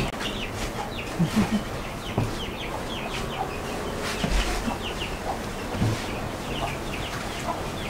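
Farmyard fowl calling in the background: short, repeated chirps and clucks in small clusters.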